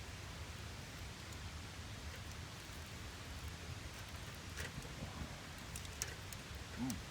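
Wood campfire burning with a steady crackle and hiss, with a few sharp pops in the second half. A short low sound stands out near the end.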